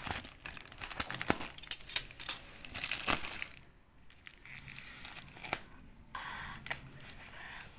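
Plastic bubble wrap crinkling and crackling as it is handled, busy for the first three seconds or so, then quieter with only a few separate crackles.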